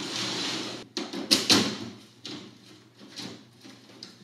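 A large DLP rear-projection TV laid down on a concrete floor: its cabinet scrapes for about a second, then several loud knocks and clunks as it comes to rest flat, with a few smaller knocks after.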